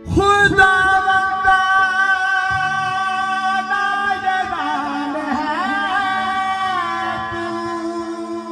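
A man singing an amplified devotional naat. He starts a long, high held note, then ornaments it with wavering melodic turns about halfway through, over a steady keyboard drone.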